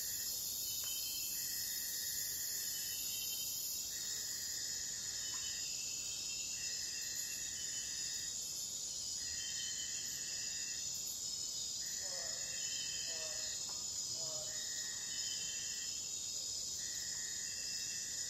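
Night chorus of Amazon rainforest insects and crickets: a dense, steady high-pitched buzzing. Through it, one insect's call sounds for about a second and a half, then stops, about every two seconds. About two-thirds of the way through, another animal gives a short series of lower, pitched calls.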